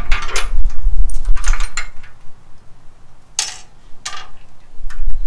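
Steel parts clanking and clinking as a fabricated cross member and its bolts are handled and fitted against a steel engine cradle: several separate metallic knocks, some with a short ringing, over a low rumble in the first half.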